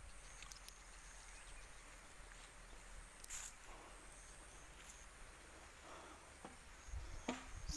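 Faint field ambience: a thin, steady high insect drone with a few light clicks.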